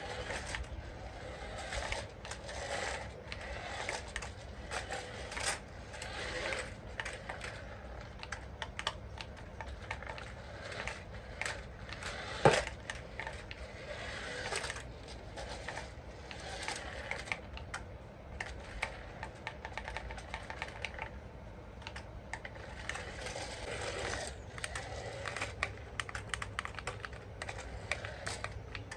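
Hands handling plastic toy parts and packaging: many small irregular clicks and rattles, with one sharper, louder click about twelve seconds in.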